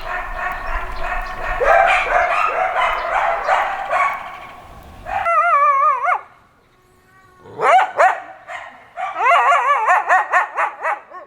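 A pack of coyotes howling and yipping together, many high wavering voices overlapping. About five seconds in the background cuts away to a single quavering howl, then a rising yip and a run of quick warbling yips near the end.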